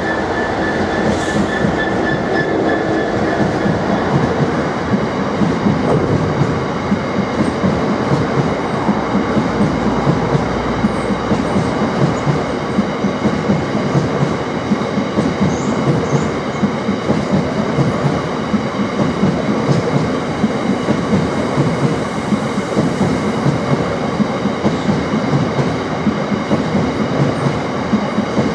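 Long freight train of hopper wagons rolling past below, a steady rumble with quick, regular clicks of the wheels over the rail joints. A diesel locomotive's engine hum is heard through the first few seconds as the locomotive passes.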